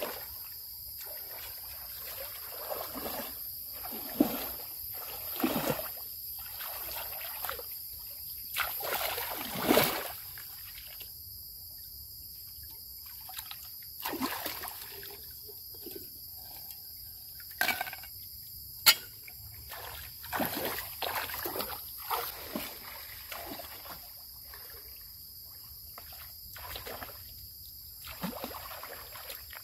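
Water splashing and trickling in irregular short spurts, over a steady high-pitched hum.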